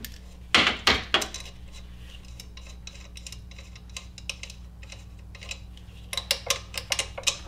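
Small metal clinks and clicks as the nut is taken off the alternator's positive output stud and the battery cable's ring terminal is worked off it: a cluster of clinks about half a second in, then a quick run of small clicks near the end.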